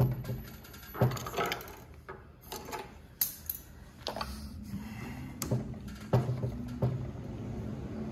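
Small metal clicks and knocks as a screwdriver and machine parts are handled on the cylinder bed of an industrial sewing machine during reassembly. From about four seconds in, a steady low hum sets in beneath the clicks.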